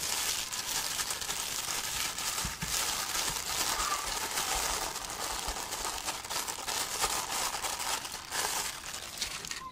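Wrapping casing crinkling and rustling as it is unwrapped and peeled off cooled homemade sausages: a steady crackly rustle made of many small crackles.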